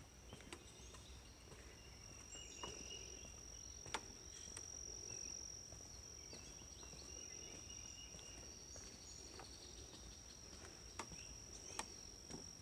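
Faint, steady high-pitched insect trill from a marsh, with fainter calls coming and going twice. A few soft clicks in between.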